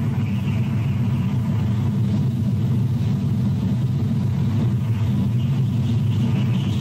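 Steady low rumble with a faint hiss above it, unchanging throughout.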